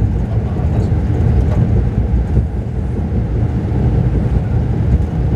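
Steady low rumble inside a Mercedes-Benz O-500RSD double-decker bus cruising at road speed: engine drone mixed with road and wind noise, heard from the upper-deck cabin.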